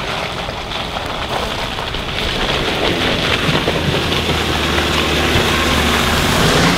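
Honda CR-V driving through deep mud ruts, its engine running under load while the tyres churn and splash through the mud with a dense rushing noise. The engine note comes through more strongly from about three seconds in and the sound grows louder as the SUV comes close.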